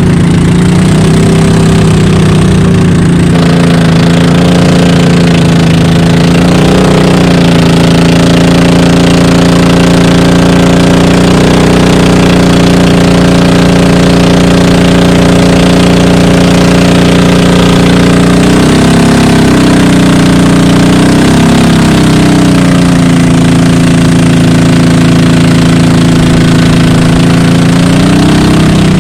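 Loud, steady engine of a motorized bangka (outrigger boat) running underway, its pitch dipping and recovering briefly a few times.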